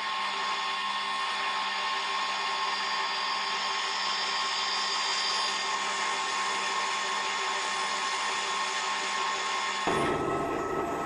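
Crankshaft grinding machine running steadily, a motor hum with a high whine over a hiss. About ten seconds in the sound shifts suddenly to a lower, fuller noise.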